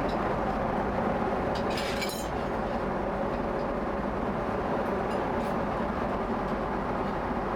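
Steady cabin noise of a Boeing 777-200ER airliner in flight, an even roar of engines and airflow, with a few light clinks of glass or tableware about two seconds in.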